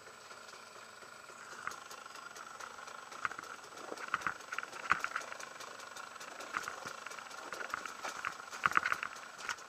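Two-stroke engine of a Husaberg TE 300 enduro bike running at low revs as it picks its way over rocks, with sharp knocks and clatter from the wheels and chassis striking stones, thickest about four seconds in and again near the end.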